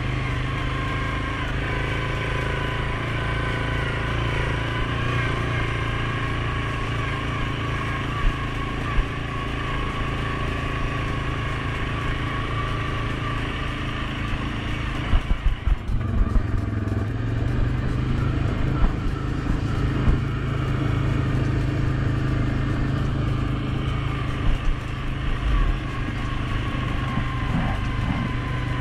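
Suzuki King Quad 750 ATV's single-cylinder engine running steadily while riding, briefly dipping about halfway through before picking up again. Scattered short thumps, with a cluster about halfway through.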